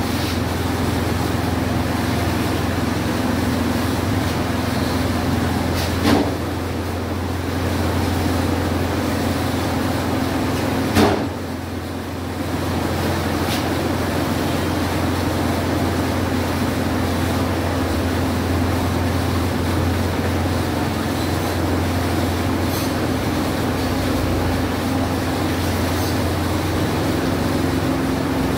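Steady low machine hum, with two short knocks about six and eleven seconds in.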